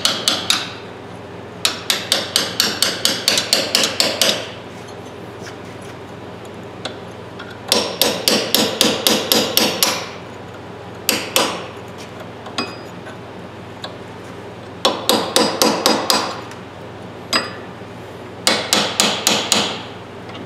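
Hammer tapping a steel punch against a snapped-off, rust-seized piece in a ratchet head held in a bench vise, metal striking metal to drive the broken stub out. Six quick runs of taps, about five a second, with short pauses between them.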